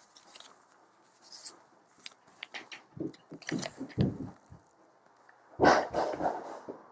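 Clear plastic DVD sleeve being handled: crinkling and clicking from about halfway through, then a loud, dense rustle and bump close to the microphone near the end.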